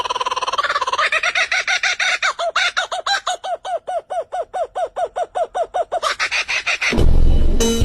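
A bird calling in a fast run of short, repeated pitched notes, about four or five a second. A sudden loud low rumble takes over near the end.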